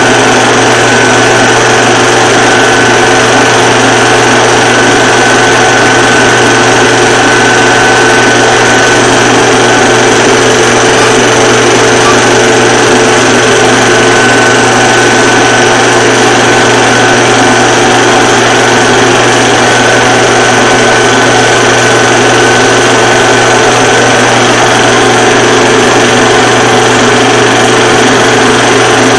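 Film projector running: a loud, steady mechanical whir with a constant hum underneath.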